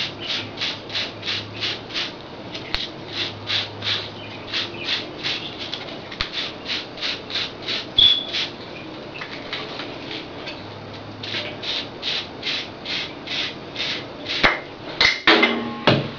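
Mini wave brush stroking over short waved hair, a rhythmic bristle rasp of about three strokes a second, thinning out briefly in the middle before picking up again. A couple of sharper knocks near the end.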